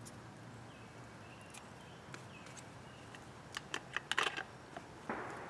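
Handling noise as a cord is worked by hand: a quick cluster of sharp clicks and rustles about four seconds in, and a short rustle near the end. Behind it a bird repeats a faint, short falling chirp about once a second.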